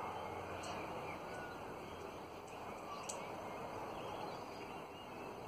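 Australian ringneck parrots (twenty-eights) feeding in a tree, giving a few faint short chirps, with a couple of sharp clicks, over a steady background hiss.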